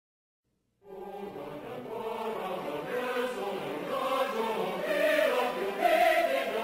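Choral music with voices chanting together, starting suddenly about a second in and growing louder.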